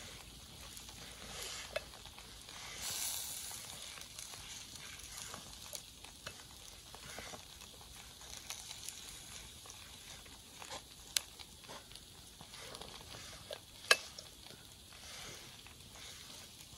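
Paneer tikka skewers sizzling faintly over a charcoal grill as they are brushed with butter, with small crackles and pops from the coals and one sharp crack late on.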